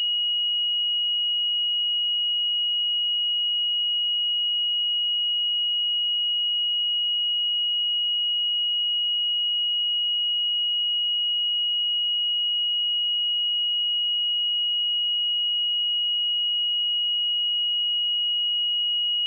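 A pure 2897 Hz sine-wave test tone, one steady high-pitched tone held unchanged at constant level.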